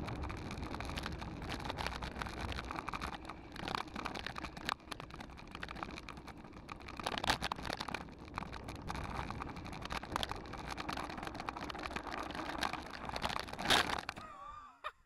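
Mountain bike rolling fast downhill on a packed-snow road: a steady rush of tyres on snow and air over the camera, with the bike rattling and crackling. Near the end there is a sudden loud thump as the bike slides out in a drift and crashes, and then the noise stops.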